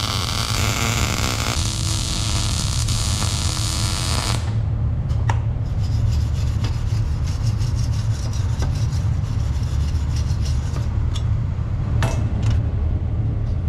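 MIG welder arc crackling steadily as a bead is laid on a steel bracket, cutting off about four seconds in. After that come scattered ticks and scraping, a wire brush scrubbing the weld, over a steady low hum.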